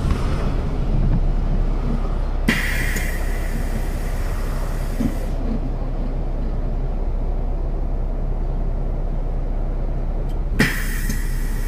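City bus standing at a stop with its engine idling low and steady. Two sudden hisses of compressed air come from its air system: one about two and a half seconds in that lasts about three seconds, and another near the end.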